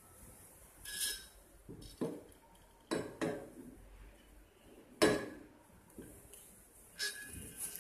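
White ceramic coffee press jug clinking and knocking against a wooden tabletop as it is handled and set down: about six separate knocks with short ringing tails, the loudest about five seconds in.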